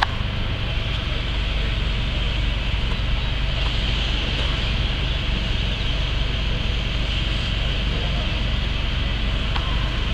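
Steady hiss of fire hoses spraying water onto a burning bus, over a constant low engine rumble.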